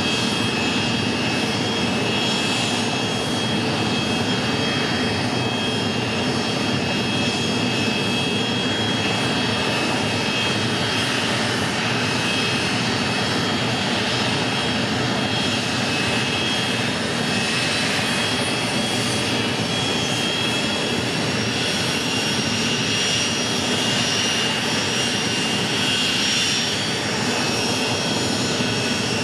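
Dassault Falcon 50's Honeywell TFE731 turbofan engines running steadily on the ground: a constant jet rush with a high whine.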